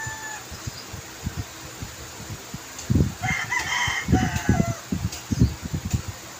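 QiYi M Pro 3x3 speed cube being turned by hand, its plastic layers giving a scattered run of short clacks. A rooster crows in the background about three seconds in.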